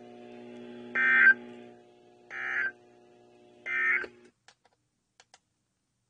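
Three short digital data bursts about 1.4 s apart, the SAME End-of-Message code that closes a NOAA Weather Radio alert, coming from a weather-alert radio's speaker over a steady low hum. The hum cuts off just after the third burst, the sign that the weekly test transmission has ended.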